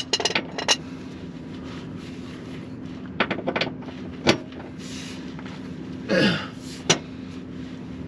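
Hand tools clinking and clanking against metal in short scattered clusters over a steady low hum, while bolts are being removed to drop a transmission.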